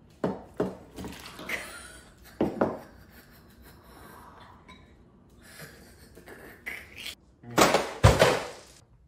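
Cereal bowls, spoons and cereal knocking and clattering on a wooden kitchen table: several sharp knocks early on, then a longer, louder clatter near the end.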